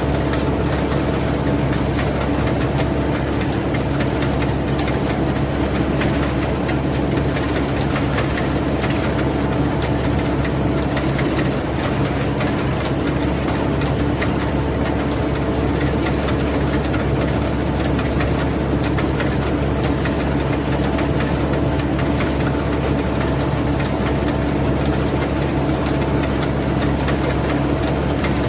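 Rice combine harvester's engine running at a steady speed, a constant hum with a fine mechanical rattle over it.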